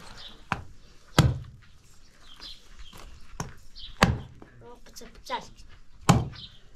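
A large knife chopping through a goat carcass's ribs on a wooden block: a series of sharp, heavy chops, the loudest about a second in, at about four seconds and near the end.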